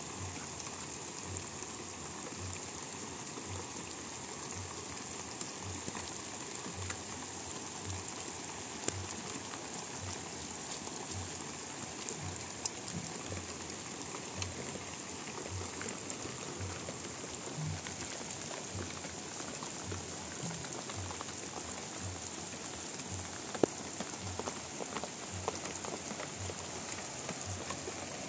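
Steady rain falling, with scattered drip ticks and one sharper tick near the end. A faint low pulse repeats about every two-thirds of a second underneath.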